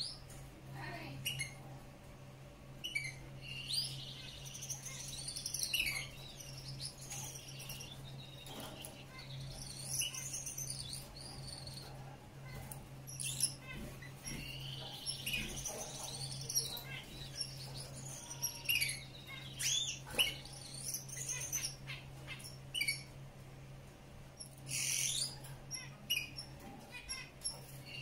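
Male Gouldian finch singing: several short bursts of high, rising and falling sweeps and clicks, a few seconds apart, over a steady low hum.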